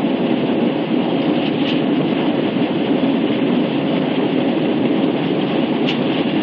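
Jet airliner cabin noise during the climb after takeoff: the steady roar of the engines and rushing air, heard from inside the cabin.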